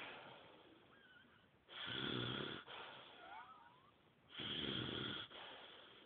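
A sleeping person snoring with their mouth open: two long, rattling snores about two and a half seconds apart, each lasting about a second.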